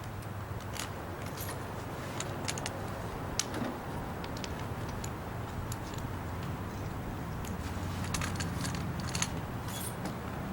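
A steady low hum with scattered light clicks and clinks throughout.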